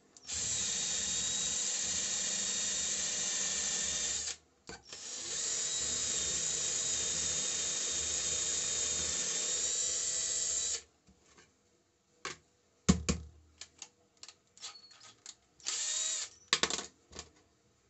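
A 12-volt IZOM cordless drill boring holes into a thin wooden board. It runs steadily for about four seconds, stops briefly, then runs again for about six seconds. After that come scattered clicks, a thump and a short burst of sound as the drill is handled.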